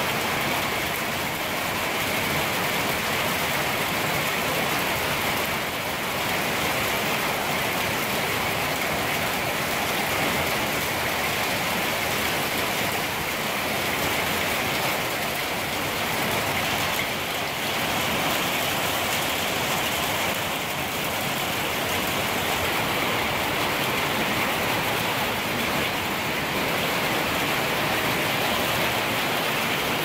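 Heavy rain falling steadily on a rooftop of concrete walls, pipes and metal beams.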